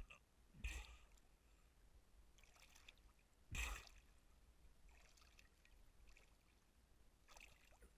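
Faint splashing and lapping of river water at the surface, with two louder splashes about three seconds apart and softer swishes between them.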